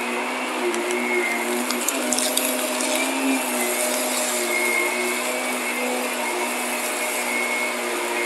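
Shark upright vacuum cleaner running steadily with a whining motor hum as it is pushed over a carpet mat, picking up fine dirt. A scatter of small ticks comes between about one and two and a half seconds in.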